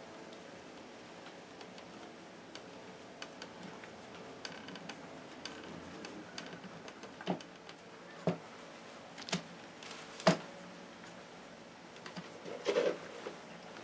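Scattered light ticks and clicks, then four sharp knocks about a second apart and a short rattle of knocks near the end, over a steady low background.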